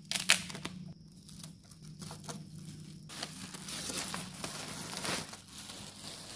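Clear plastic wrap being crinkled and pulled off a boxed cajon: a few sharp crackles at first, then continuous crinkling from about halfway.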